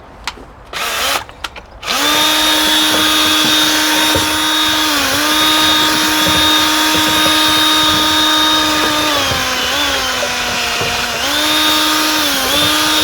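Small electric motor of a drill-like power tool: a few short spin-ups, then a steady high whine that runs for about twelve seconds, sagging in pitch briefly several times before cutting off.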